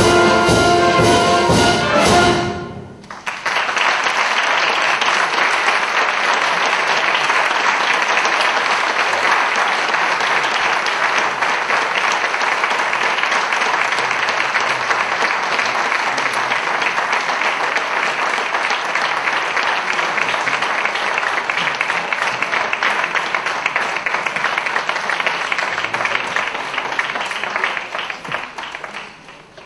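A youth wind band ends a piece on a loud, brass-led final chord that cuts off about two and a half seconds in. Audience applause follows, steady for over twenty seconds, then dying away near the end.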